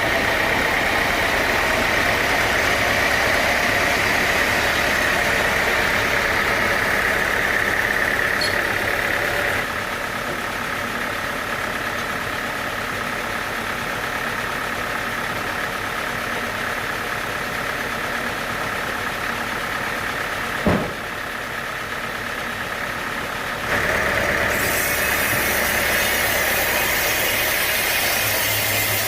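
Sawmill machinery running steadily with an engine-like hum. The sound drops and changes about ten seconds in, a single sharp knock comes near twenty-one seconds, and the louder running sound returns near the end.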